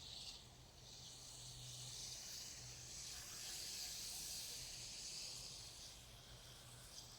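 Snow flowing down a river, a faint, high, continuous hiss that swells and eases.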